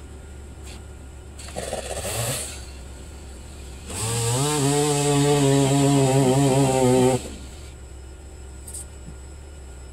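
Stihl two-stroke chainsaw being pull-started: a first short burst that doesn't keep running, then the engine catches and runs loud and steady for about three seconds before cutting off suddenly. A steady low hum sits underneath throughout.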